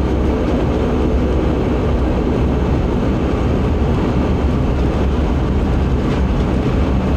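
Bombardier Q400's Pratt & Whitney PW150A turboprop engine and propeller running at low taxi power, heard inside the passenger cabin as a steady low drone.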